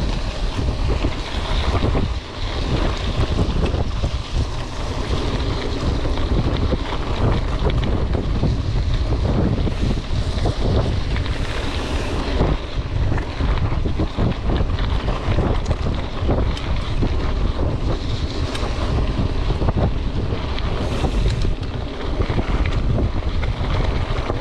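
Wind buffeting the microphone while a Trek Marlin 7 mountain bike rides fast over a rough gravel and dirt track, with a steady rumble of tyres on gravel and constant small rattling jolts from the bumps.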